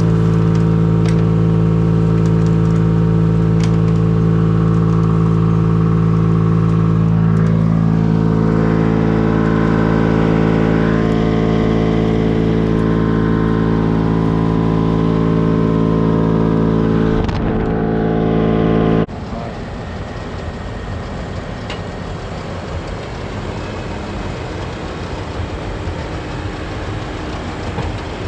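Farm machinery engine running steadily at a constant speed, with a slight waver in pitch about a quarter of the way in. About two-thirds through it cuts off abruptly to a quieter, rougher machine rumble.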